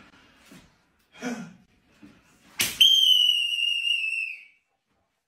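A sharp crack about two and a half seconds in, then a loud, steady, high whistling tone that sinks slightly in pitch and cuts off after nearly two seconds. A short vocal exclamation comes earlier.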